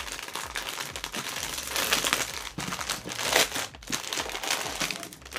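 Plastic packaging of a model kit crinkling as it is handled: an irregular run of crackles, with a few louder ones about two and three seconds in.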